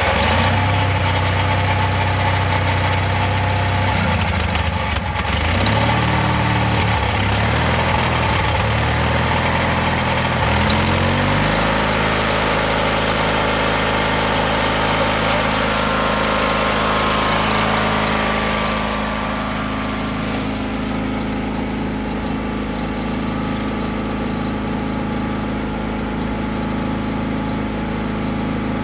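Small gasoline engine of a Waterous skid-mounted fire pump running just after starting, its speed wavering at first, then rising and settling to a steady higher speed about twelve seconds in. A little quieter and duller in the last third.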